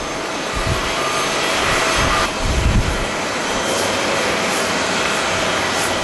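Twin-engine jet airliner on the runway, its turbofan engines giving a steady rushing noise with a faint whining tone. Low gusts of wind buffet the microphone in the first few seconds, and the sound changes abruptly a little over two seconds in.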